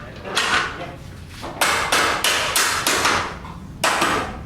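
Hammer blows, about eight sharp strikes: a single one, then a quick run of several at about three or four a second, and one more near the end.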